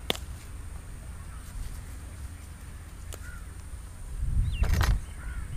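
Steady low wind rumble on the microphone, with a few short bird chirps and some faint clicks. The rumble grows louder for about a second near the end, with another bird call over it.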